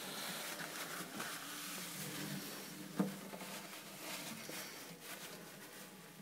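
Faint rustling and handling noise with a single sharp click about three seconds in.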